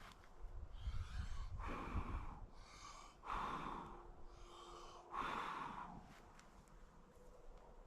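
A person's breathing: a series of about six hard, hissy breaths in quick succession.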